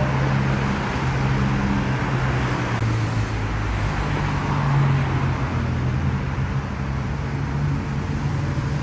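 A motor vehicle running: a steady, low engine hum under road noise, the hum's pitch shifting slightly now and then.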